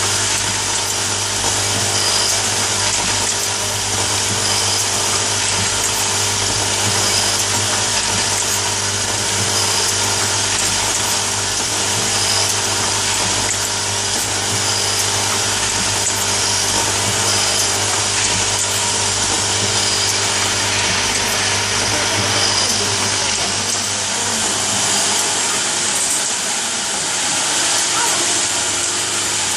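Automatic nail polish filling and capping machine running: a steady low hum with a hiss of motor noise over it. A faint, short high tick recurs about every second and a half.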